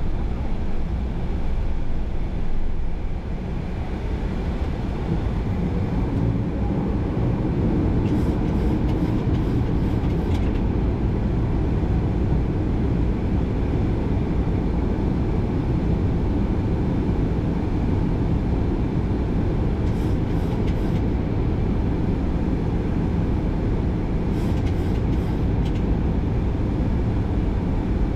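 Steady cockpit noise of airflow and engines in a Boeing 737-800 on final approach.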